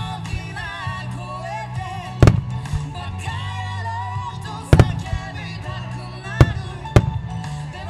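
Starmine firework shells bursting in four sharp bangs, the last two close together. Under them a pop song with singing and a steady bass line plays throughout.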